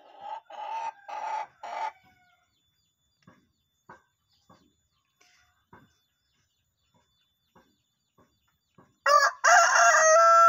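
Rooster crowing: about nine seconds in, a short opening note and then a long, loud, steady held note, the drawn-out crow typical of a contest rooster. Before that, four short calls in the first two seconds.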